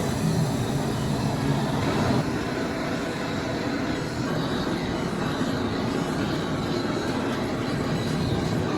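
Steady mechanical noise of factory machinery running, an even rumble and hiss with no clear rhythm.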